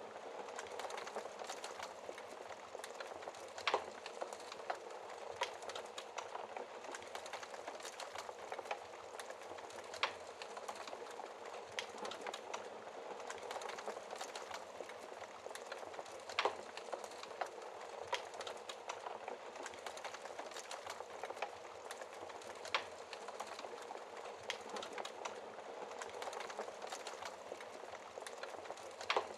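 Wood fire crackling in a fireplace: a steady hiss with frequent small pops and a few louder snaps.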